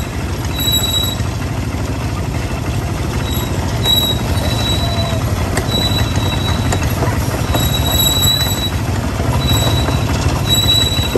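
ATV engines running as several quad bikes ride along a dirt trail, a steady low rumble. Short high-pitched tones recur about every second over it.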